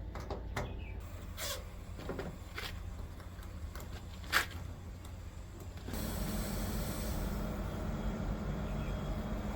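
A few sharp clicks over a low hum, then about six seconds in a Sharp window air conditioner starts up: a steady rush of air with a hum, the restored unit running.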